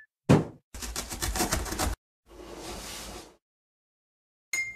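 Cartoon sound effects for an animated box: a sharp thump about a third of a second in, then a rapid rattle of about a dozen clicks a second lasting just over a second. Then comes a hissing whoosh for about a second, and a short bright ring near the end.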